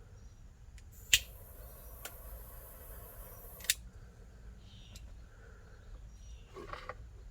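A sharp click, about two and a half seconds of steady hiss, then another click: a heat tool switched on and off to shrink solder connectors on the relay harness wires. A short handling rustle follows near the end.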